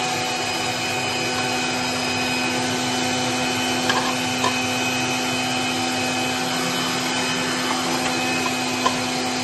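Electric juicer motor running steadily with a constant hum, with a few faint knocks as pieces of amla are fed through it.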